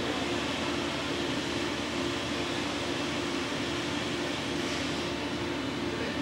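Steady machinery hum and hiss of a heavy engineering workshop, with a constant droning tone and no distinct knocks.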